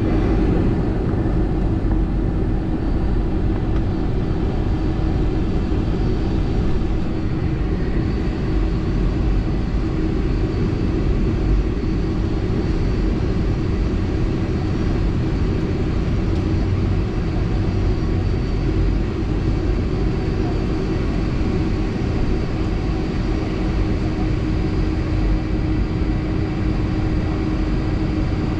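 Boeing 757-300 jet engines running with a steady low rumble and a constant hum, the level holding even throughout.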